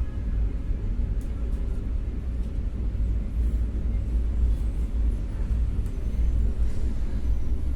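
Steady low rumble of rushing air from a hot air rework station blowing on a phone mainboard while the CPU chip is soldered back on.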